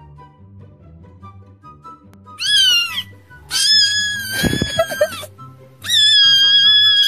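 Three loud, high-pitched cat meows from meme sound clips: a short one falling in pitch about two and a half seconds in, then two long drawn-out wails. Quiet background music plays under them.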